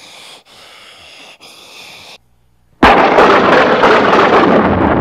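A sudden loud blast about three seconds in, an explosion sound effect that keeps rumbling on without a break. Before it come a few seconds of quieter breathy noise.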